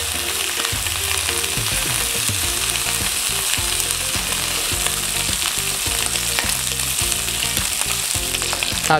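Pork spare rib pieces sizzling steadily in a hot nonstick frying pan as they are turned with chopsticks, searing until the surface turns golden brown.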